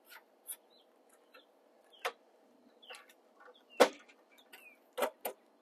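Insulated electrical wires being pushed through a conduit connector into a metal breaker panel, knocking and rubbing against the enclosure: scattered clicks and scrapes, the loudest a sharp knock nearly four seconds in, then a quick run of three near the end.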